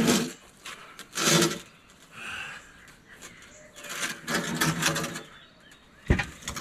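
A man grunting and straining as he tips a heavy treated pine 6x6 post end over end, with a sharp knock near the end as the timber comes down.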